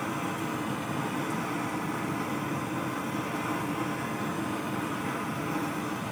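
Portable LPG gas burner running under a wok, its flame giving a steady hiss and rumble.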